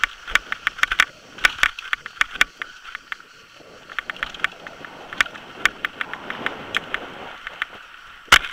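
Downhill mountain bike rattling over a rocky, gravelly trail: a quick, irregular run of sharp clicks and knocks from the bike over a steady hiss of wind and tyre noise, with a loud knock near the end.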